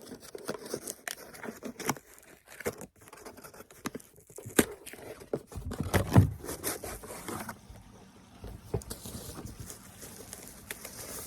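Hands wrestling with stubborn product packaging: irregular clicks, scrapes and crinkling, with a heavier knock about six seconds in.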